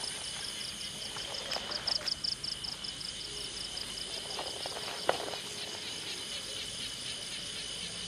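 Crickets and other night insects chirping, one in an even, rapid pulsing trill over a steady high drone. A few soft knocks come about two seconds in, and a single sharp click about five seconds in.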